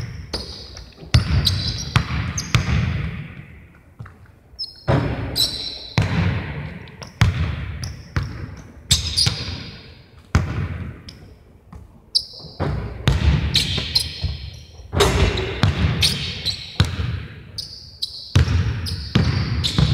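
Basketball bouncing on a gym floor, a run of sharp thuds in irregular groups, each echoing in the large hall.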